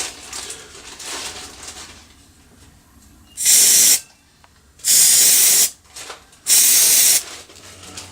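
Three short hissing blasts from a pressurized jet, each lasting well under a second, coming about a second and a half apart.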